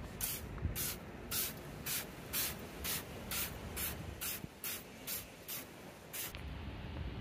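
A hand trigger spray bottle squirting liquid in quick, evenly paced pumps, about two a second and some fourteen in all, stopping abruptly near the end.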